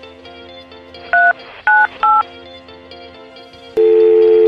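Smartphone keypad touch-tones: three short two-note beeps as 1-2-5 is dialled, over soft background music. About four seconds in, a loud steady two-note phone tone starts as the call goes through.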